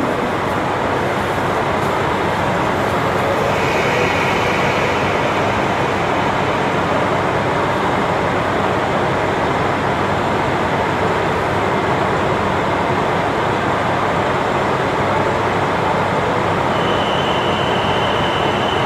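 KiHa 40 diesel railcar standing at a platform with its diesel engine idling steadily. A thin high steady tone comes in near the end.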